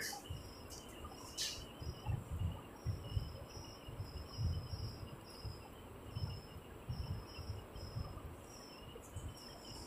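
Quiet room tone with soft, irregular strokes of a marker writing on a whiteboard. Faint, short high chirps repeat about every half second from about three seconds in.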